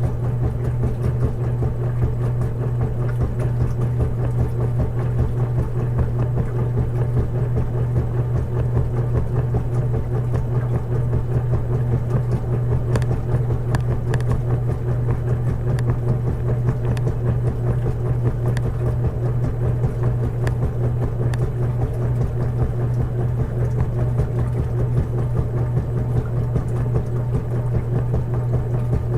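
Washing machine running steadily, a constant low motor hum with a fast, even throb underneath.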